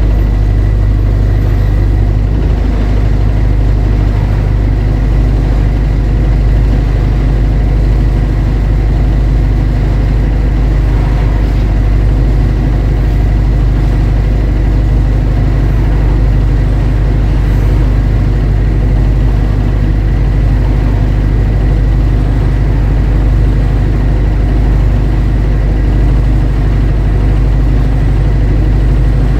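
Diesel bus engine running steadily, heard from inside the bus as a constant deep rumble. A thin, steady high whine sits above it.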